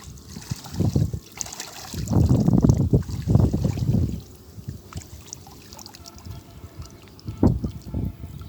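Water splashing and sloshing in irregular bursts, heaviest about two to four seconds in, with another splash near the end.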